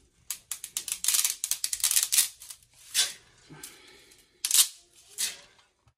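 Dry fettuccine noodles snapping as they are broken by hand: a quick run of cracks in the first two seconds, then a few single sharp snaps.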